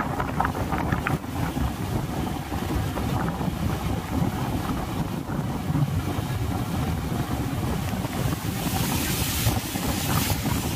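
Wind rushing over the microphone while riding on the road, a steady low buffeting rumble with no let-up.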